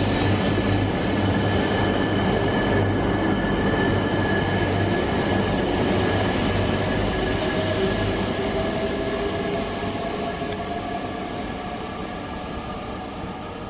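Genbi Shinkansen, an E3-series bullet train, pulling away along the platform and accelerating, its motor whine slowly rising in pitch over the running noise. The sound fades over the last few seconds as the train draws off into the distance.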